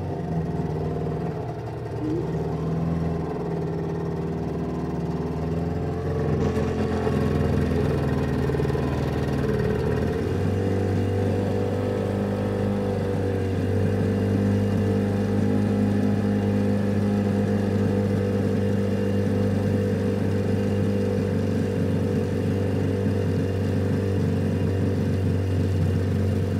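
Motor of a small boat running steadily under way. About six seconds in a hiss of water joins it, and about ten seconds in the engine's tone shifts and grows a little louder.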